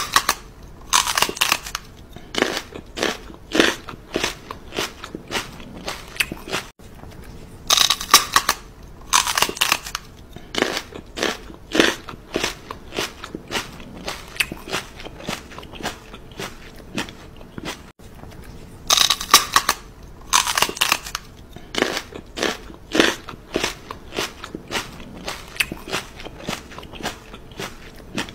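Crunching, chewing bite sound effect: clusters of crisp crunches, the same pattern repeating about every eleven seconds.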